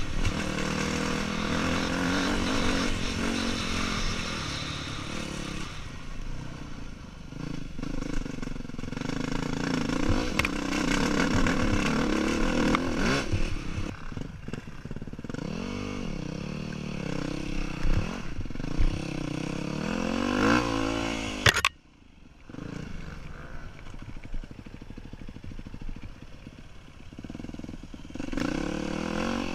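2008 Yamaha WR250F's 250 cc single-cylinder four-stroke engine being ridden off-road, its revs rising and falling with the throttle, with some clatter. About 21 seconds in the revs climb sharply, then the sound drops away suddenly for a moment before the engine is heard again, quieter.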